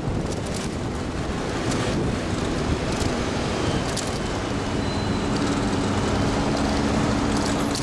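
An open-top sightseeing bus and the city traffic around it, heard from the open upper deck: a steady rush of engine and road noise. A steady low engine hum comes in about five seconds in.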